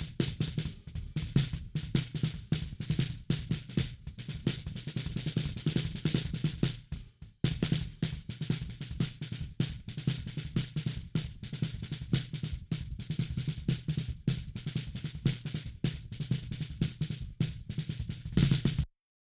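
Recorded drum kit played back during mixing, kick and snare to the fore, playing a busy pattern. It drops out briefly about seven seconds in and stops abruptly near the end.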